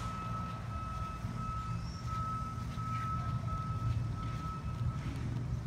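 Vehicle reversing alarm beeping at a steady pace, about one and a half beeps a second, over a low rumble; the beeping stops about five seconds in.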